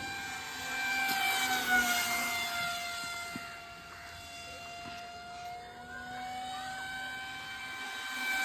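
Radio-controlled aircraft's motor and propeller giving a steady high whine. It grows louder about a second in and drops in pitch as the aircraft passes, then fades. Near the end it climbs in pitch again as the aircraft comes back.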